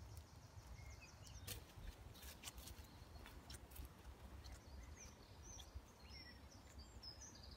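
Quiet woodland with faint bird chirps now and then, light footsteps on leaf litter, and a steady low rumble underneath.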